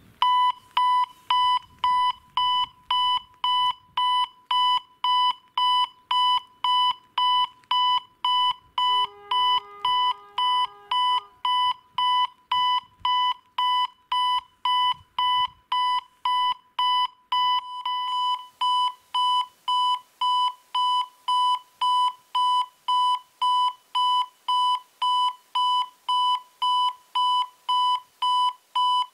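Electronic acoustic warning signal (EHL-S10) of a Polish level crossing, beeping in a fast, even rhythm on a high piercing tone: the crossing warning has just activated for an approaching train. A second, lower steady tone sounds for about two seconds a third of the way in.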